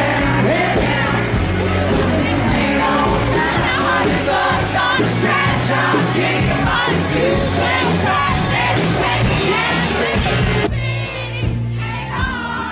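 Live band playing loud music with a lead singer, the crowd singing along and yelling. About ten and a half seconds in it cuts abruptly to a quieter stretch of women singing and shouting.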